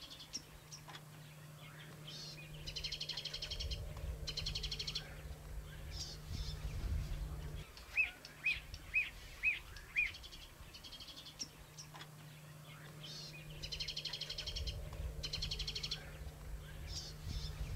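Birds singing in the bush, with repeated high trilling phrases and a run of five short chirps about eight seconds in. A steady low hum runs underneath.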